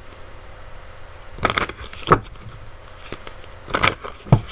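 Playing cards being handled: a few short rustles and taps of card stock about one and a half to two seconds in and again near the end, over a steady faint hiss.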